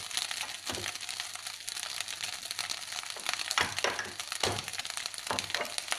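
Fried rice sizzling in a pan while a wooden spatula stirs and scrapes through it, with irregular scraping strokes over a steady hiss.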